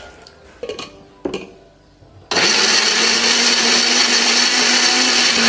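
A couple of light knocks, then about two seconds in a countertop blender switches on abruptly and runs steadily at full speed. It is grinding raw shallots, garlic, red chillies and spices with a little water into a paste.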